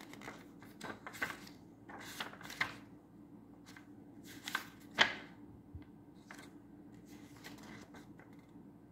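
Pages of an illustrated children's Bible being turned by hand: a string of short paper rustles and flips, the sharpest about five seconds in.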